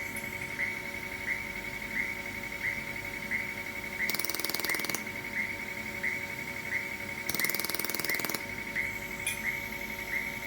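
Pulsed YAG laser welder firing twice, each a burst of very rapid pulses lasting about a second. Under it runs the machine's steady hum, with a faint high chirp repeating about one and a half times a second.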